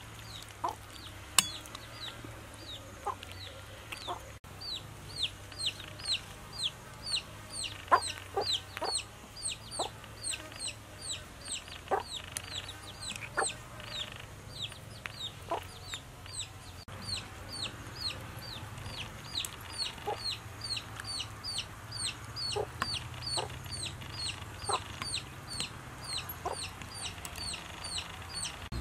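Chickens: chicks peeping in a steady run of high, falling calls, two or three a second, with short low clucks now and then. Two sharp clicks stand out, one about a second in and one about eight seconds in.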